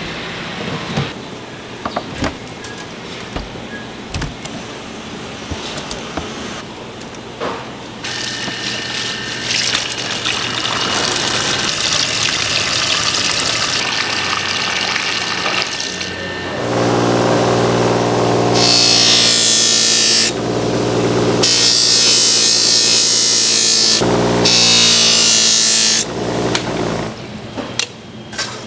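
Whole milkfish knocking and thudding on a wooden chopping block, then water running and splashing in a plastic tub as the fish are rinsed, loudest in the second half with a low steady hum under the rush.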